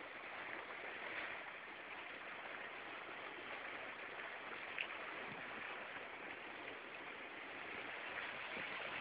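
Steady rush of water along a sailing boat's hull as it moves under way, with one faint click about five seconds in.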